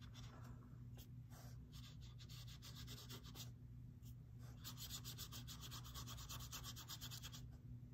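Faint rubbing strokes of a paintbrush on watercolor paper and in a watercolor pan, coming faster in the second half, over a steady low hum.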